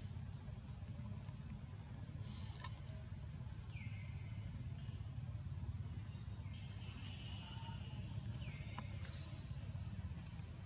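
Forest ambience: a steady insect drone of high-pitched tones, over a low rumble. Several short chirps that drop in pitch come every second or two, with a couple of faint clicks.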